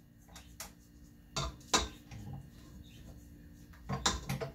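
Spatula scraping down the sides of a stainless steel stand-mixer bowl, with a few sharp knocks of the spatula against the metal.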